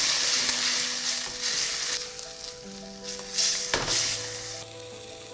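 Glass noodles and a freshly added soy-sriracha sauce sizzling in a hot stainless steel pan as they are stirred and tossed. The sizzling is loudest for the first two seconds and then dies down, with one sharp knock a little before four seconds in.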